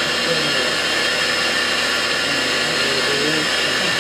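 Okuma LB-15M Mark II CNC lathe running: a steady machine noise with several high whining tones that hold level throughout.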